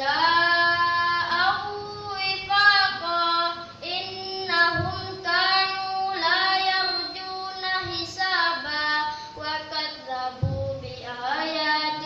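An eleven-year-old boy reciting the Qur'an in a melodic chant, holding long notes that bend up and down, with short pauses for breath.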